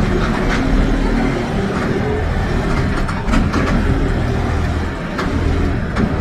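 Mercedes-Benz OF 1721 BlueTec 5 bus's diesel engine running steadily, heard from inside the bus body, with scattered short clicks and rattles.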